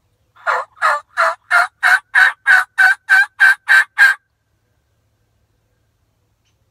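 Turkey call blown by mouth with the hands cupped over it: a series of about twelve evenly spaced yelps imitating a hen turkey, roughly three a second, growing louder, ending about four seconds in.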